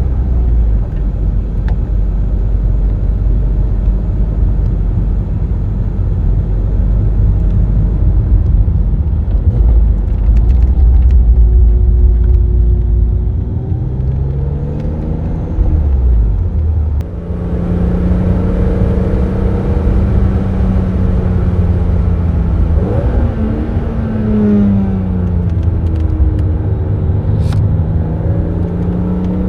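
BMW Z3 M Roadster's 3.2-litre naturally aspirated inline-six heard from the driver's seat, with heavy road and wind rumble. Its pitch rises under acceleration about halfway through, holds steady, climbs and falls away again, then rises once more near the end.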